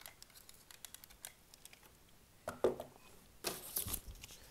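Small sharp clicks of a heavy plastic and die-cast toy robot's parts being handled and snapped together. A louder knock comes about two and a half seconds in, then a clunk with rustling near the end as the figure is set on the table and the instruction sheet is moved.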